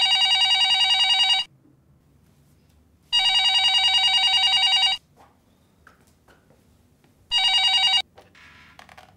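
Red desk telephone ringing with a fast trilling ring: two full rings of about two seconds each, and a third cut short about eight seconds in as the handset is snatched up. A few clicks of the handset being lifted follow.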